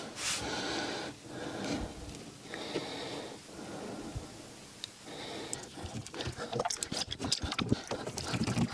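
Soft handling noise as a glued wooden strip is pressed along the edge of a multiplex plywood panel. From about five and a half seconds in comes a run of sharp clicks and knocks as a bar clamp is handled and set on the panel.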